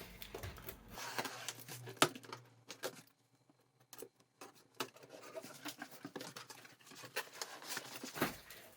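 Knife cutting the packing tape on a cardboard box: scratchy slitting, cardboard rustling and scattered clicks, with a sharp click about two seconds in and a brief lull a little after three seconds.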